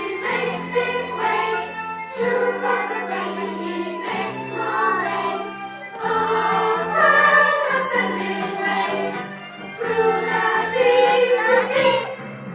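A group of young children singing a song together over a recorded backing track, in phrases with short dips about every four seconds.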